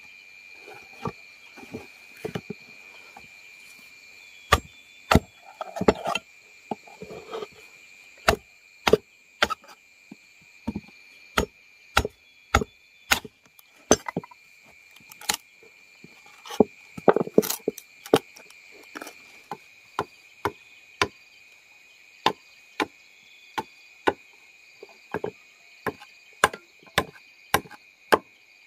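Repeated chopping or knocking blows on wood, sharp and irregular at about one or two strikes a second, over the steady high drone of insects.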